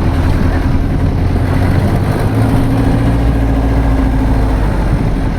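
A vehicle engine running at an even pitch under a continuous rush of road noise, heard from the moving vehicle.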